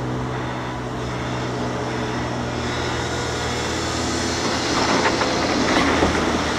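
Heavy diesel engine of a large CASE CX750D crawler excavator running steadily under load. About five seconds in, a rough clatter of rock spills from its bucket into an articulated dump truck's bed.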